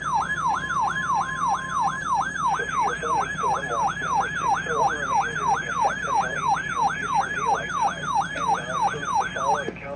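Electronic siren-style alert tone, falling from high to low over and over, about two and a half sweeps a second. A steady high beep sounds under it for the first two seconds, and the siren cuts off abruptly near the end.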